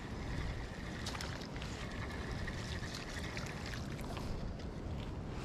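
Wind buffeting the microphone in a steady low rumble, with a few light clicks and a faint high whine in the middle as a small spinning reel is cranked to bring in a hooked crappie.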